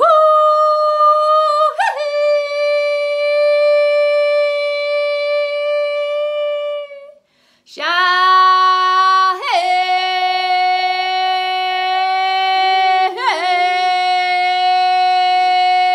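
A woman's wordless vocal toning: two long held notes, the second lower than the first, with a breath between them about seven seconds in. Each note has brief yodel-like flips in pitch.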